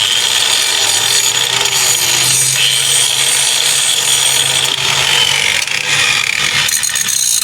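Angle grinder with a grinding disc grinding down the freshly cut edge of a metal tab so it won't be sharp, running steadily under load with a high whine.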